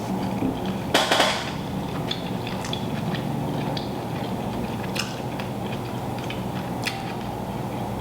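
Eating a seafood boil by hand: a loud crackling burst about a second in, then scattered small clicks and crinkles, over a steady low hum.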